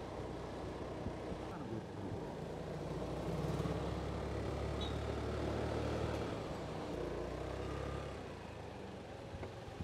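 Motorbike engine running steadily while riding along a road, with road and wind noise. The engine hum grows louder a couple of seconds in and eases off near the end.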